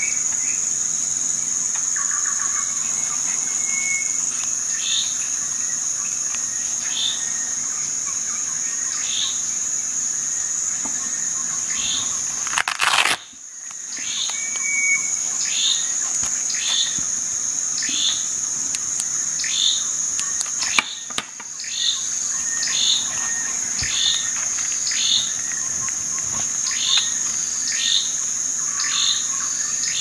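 Insects trilling steadily on a high note, with a bird repeating a short, falling chirp about once a second. There is one brief loud bump about 13 seconds in.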